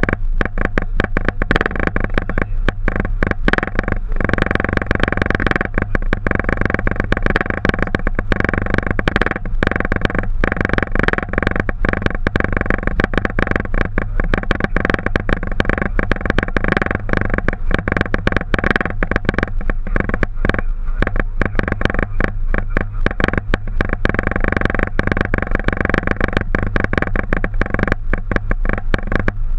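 Boeing 737 cockpit noise: a steady, loud drone of engines and airflow with a few steady tones in it, fluttering with many brief dips.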